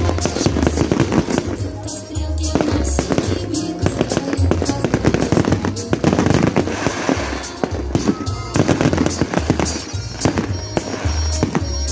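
Fireworks bursting and crackling in rapid succession, with loud music and its pulsing bass underneath.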